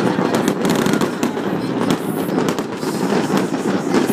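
Fireworks display going off without a break: a dense crackle of many quick pops and bangs.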